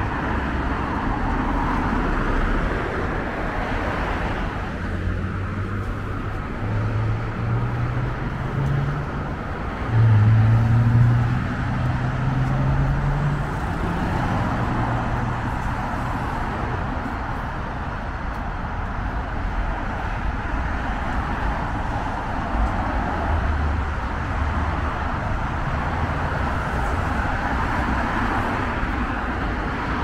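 City street traffic noise with cars passing. Midway through, a vehicle engine grows louder and rises in pitch in several steps, loudest about ten seconds in, then fades back into the traffic.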